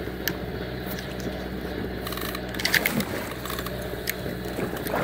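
A bull shark thrashing at the surface against the boat's hull, water splashing and slapping, loudest about two and three-quarter seconds in and again at the end. Under it runs the steady hum of a machine aboard the boat.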